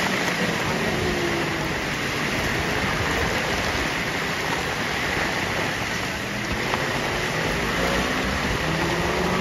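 Heavy rain falling steadily, with the faint engine notes of racing motorcycles on the wet circuit rising and falling a few times beneath it.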